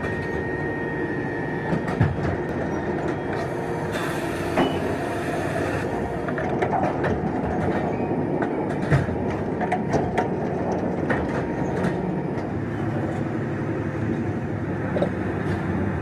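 Sawmill machinery running: a steady mechanical din with scattered sharp knocks and clanks.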